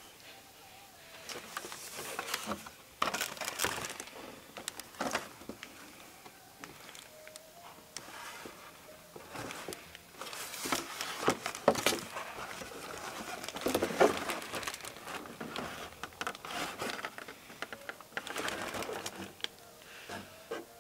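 Cardboard model-kit boxes handled and shuffled by hand: irregular rustling, sliding and light knocks and taps, with sharper clicks about three, eleven and twelve seconds in.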